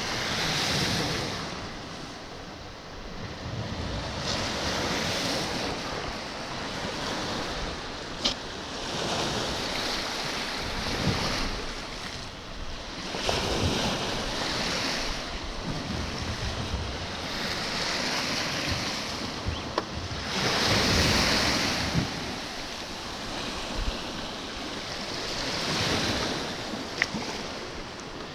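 Sea waves washing in, a hissing surge that swells and fades every four seconds or so, with wind rumbling on the microphone and a few light knocks.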